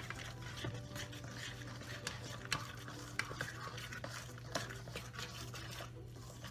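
Thick flour-and-egg batter being stirred by hand in a bowl: irregular scraping and light clicks of the utensil against the bowl as water is worked in to thicken it. A low steady hum runs underneath.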